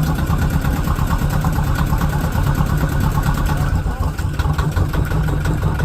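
Yanmar marine diesel engine running steadily in gear, turning the saildrive.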